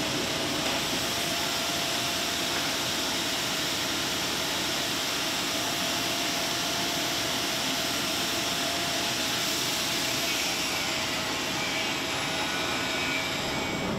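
Handheld angle grinder running steadily against steel, a continuous hissing grind with a steady whine underneath.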